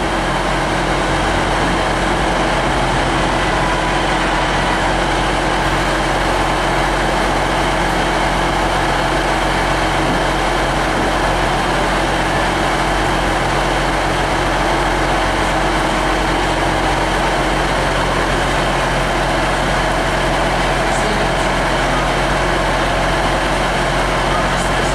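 Diesel trains at a station, their engines running with a steady drone of several pitches.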